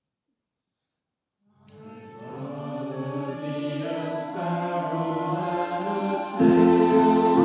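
Choir singing with electric piano accompaniment, fading in out of silence about a second and a half in and growing louder about six seconds in.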